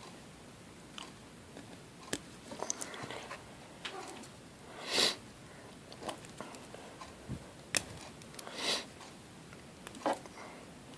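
Small scattered clicks and scrapes of steel tweezers prying at the C-clip on a Master Lock M930 padlock's cylinder, which won't come off. Two short sniffs, about five and nine seconds in, are the loudest sounds.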